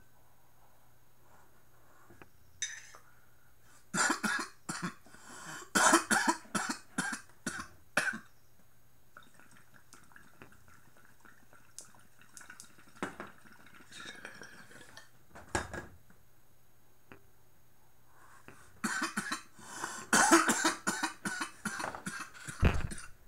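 A man coughing in two hard fits, one about four seconds in and another near the end. In between, water gurgles through a glass bong as he draws a hit.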